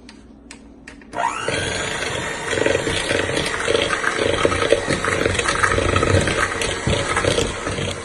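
Electric mixer starting up about a second in with a rising whine, then running steadily as it beats butter and sugar together into a cream.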